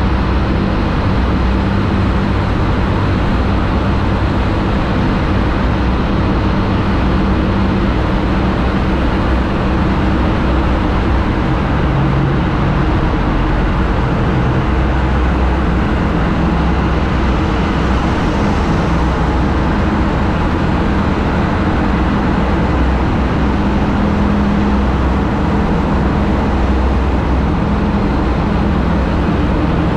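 Motorcycle engine running steadily at cruising speed, under heavy, even wind and road noise, inside a long road tunnel.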